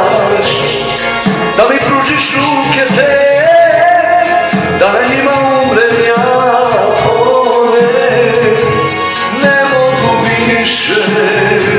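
A man singing a slow love song in a South Slavic language into a handheld microphone, with long wavering held notes over an instrumental backing.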